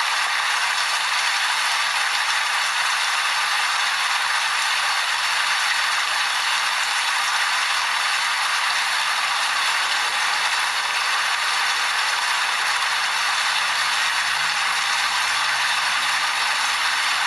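Steady rain falling: an even hiss of many drops, mostly high-pitched with little low rumble, without let-up.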